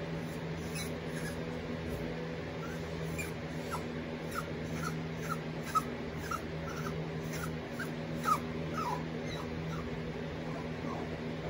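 Eight-week-old puppy whimpering: a rapid run of short, high-pitched, falling whines, about two or three a second, stuck on a bed and wanting to get down. A steady hum of a fan or appliance runs underneath.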